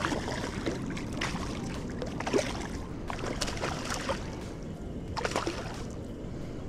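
A hooked fish thrashing at the water's surface, a quick run of sharp splashes that dies away about five and a half seconds in, over a steady low rumble.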